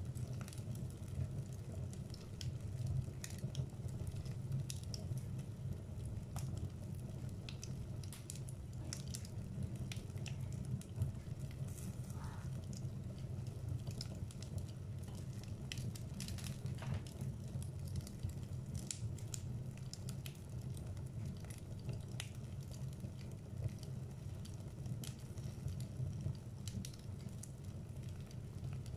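Wood fire burning in a fireplace: a steady low rumble of flames with irregular crackles and pops from the burning logs, and one brief faint whistle about twelve seconds in.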